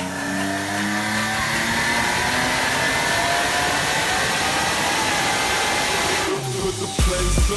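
A car engine accelerating, its pitch rising steadily for about six seconds before cutting off. Music with a heavy bass beat comes in near the end.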